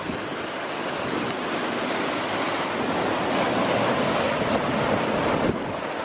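Sea surf breaking and washing against shore rocks: a steady hiss of foaming water that swells to its loudest about four seconds in.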